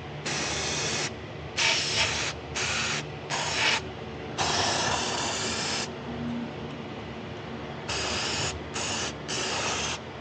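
Aerosol spray can sprayed in eight short bursts of hiss, one of them longer, about a second and a half, near the middle.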